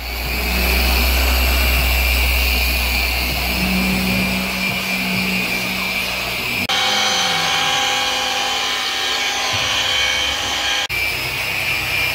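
Handheld machine polisher with a foam pad running steadily on car paint: a steady motor whir and pad buzz as the paint is machine-polished. The sound changes abruptly about two-thirds of the way through and again near the end.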